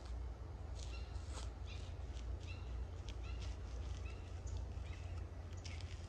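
Birds calling: many short, clipped chirps in quick succession, over a steady low rumble.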